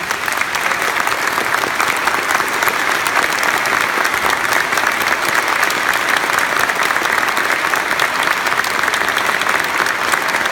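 A large audience applauding, many hands clapping in a dense, steady, sustained ovation.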